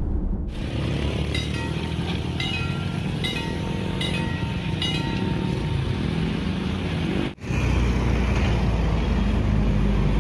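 Dome-shaped railway level-crossing warning bell ringing in a string of metallic strikes over a steady low rumble. After a sudden cut, steady road-traffic noise.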